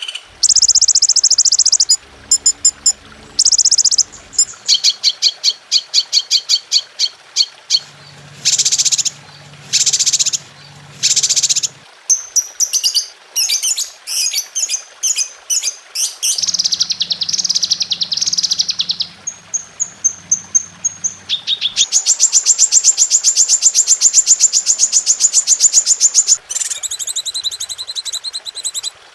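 Songbirds calling and singing, a masteran bird-song track: bursts of loud, high chirps, fast trills and whistled phrases that switch abruptly from one type of song to another every few seconds.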